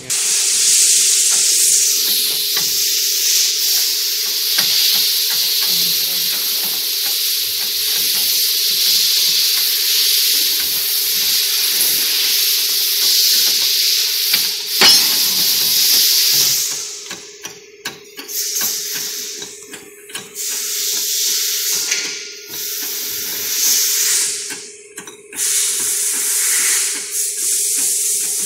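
Compressed-air hiss from a shop press pressing the wheel bearing of a rear brake drum hub, steady over a low hum. In the second half the hiss cuts out briefly several times.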